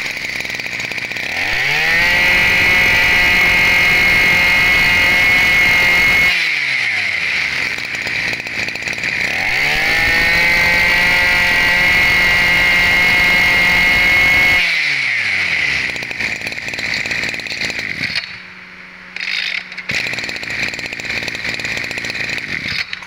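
Maru 23, a 23 cc two-stroke brush cutter engine, idling and then revved twice to full throttle. Each time it holds high for about five seconds before dropping back to idle.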